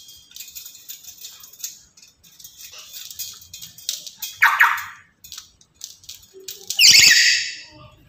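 Black-capped lory chattering in high, scratchy notes, then giving a loud, falling screech about halfway through and a louder harsh screech near the end.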